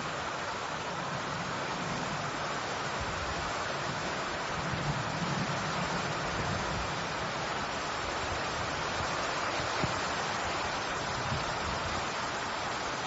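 Steady rushing noise of water.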